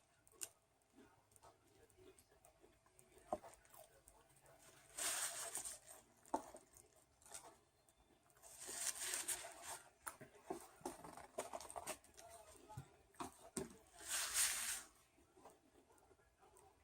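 Someone eating: scattered small mouth and chewing clicks, with three short bursts of food packaging rustling, about five, nine and fourteen seconds in.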